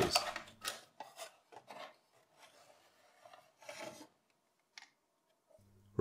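Motherboard scraping and knocking against the Lenovo ThinkCentre M91p SFF's case as it is worked loose and lifted out: several short scrapes and clicks in the first two seconds, then another scrape about four seconds in.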